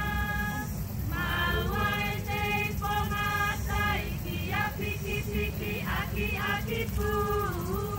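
High voices singing a Polynesian song for the dancers, in long held notes with short slides between them, over a steady low rumble.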